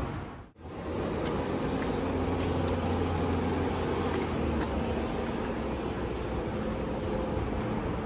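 Steady low engine-like hum over outdoor city background noise, with a brief dropout about half a second in.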